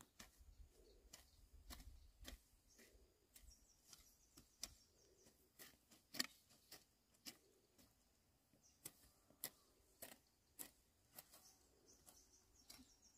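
Hoes chopping into dry field soil: faint, irregular strikes about one or two a second, the loudest about six seconds in. Faint bird chirps are heard high above them.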